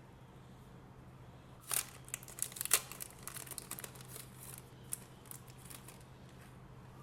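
Hands handling a thin plastic credit-card folding knife: a quick run of sharp plastic clicks and crinkly scrapes that starts about two seconds in and dies away after about three seconds, over a steady low electrical hum.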